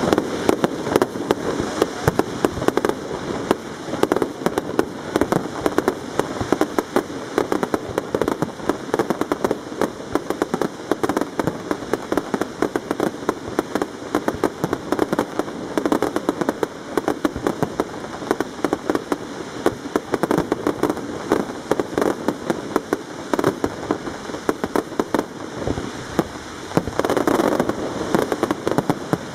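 Aerial fireworks display going off without pause: a dense stream of shell bursts, bangs and crackle, many sharp reports a second.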